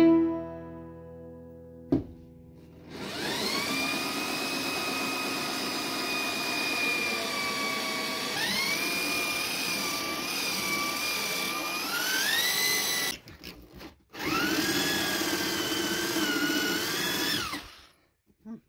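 Corded electric drill running a hole saw through a door to bore the doorknob hole, its motor whine stepping up in pitch partway through. It stops briefly about thirteen seconds in, then runs again for a few seconds before stopping.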